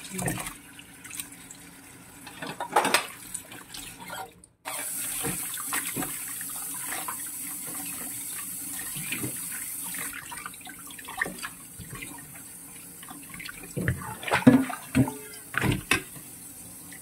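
Tap water running into a stainless-steel bowl in a sink while hands knead and rinse pieces of frog meat, with sloshing and splashing. There is a brief break about four and a half seconds in, and louder splashes a little before the end.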